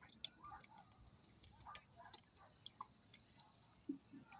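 Near silence: faint room tone with a few scattered small clicks.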